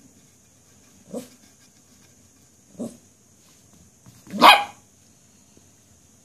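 Toy poodle barking three times, about a second and a half apart: two short, soft barks, then a loud one.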